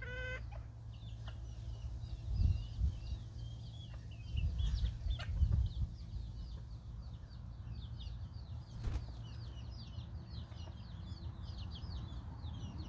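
Serama bantam chicks peeping: a steady stream of short, high peeps, busiest in the second half. Low rumbles on the microphone about two and five seconds in.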